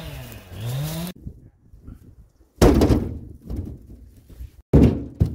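Rounds of birch firewood dropped into a metal trailer bed, landing with heavy thuds: one about two and a half seconds in, then two close together near the end, with smaller knocks between. A wavering hum stops abruptly about a second in.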